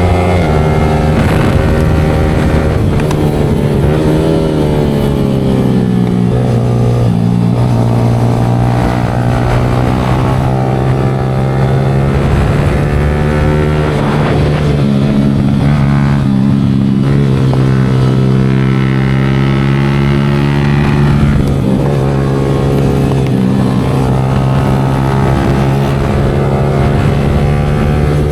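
Yamaha R15 V4 motorcycle's 155 cc single-cylinder engine running through an aftermarket Leo Vince exhaust while riding, its note rising and falling several times as the revs change.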